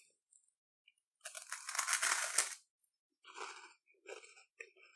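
Biting into a crisp melon soda chocolate taiyaki wafer: a crunch about a second in that lasts just over a second, then a few quieter, short chewing crunches.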